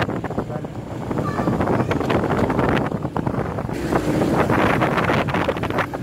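Heavy wind buffeting on the microphone of a moving motorcycle, in uneven gusts, with the motorcycle's engine running underneath.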